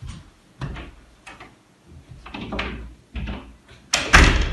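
A room door being opened and shut: a series of knocks and thuds, the loudest near the end.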